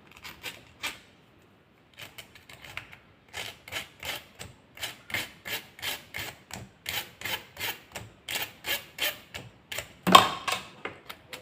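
Pins of a new 18-pin push switch being scraped in quick repeated strokes, about three a second, to take off their coating so that solder will take. One stroke near the end is louder.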